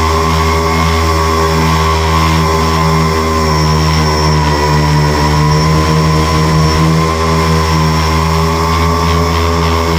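Electric motors and propellers of an FPV tricopter in flight, a loud steady drone of several pitches that waver slightly as the throttle changes.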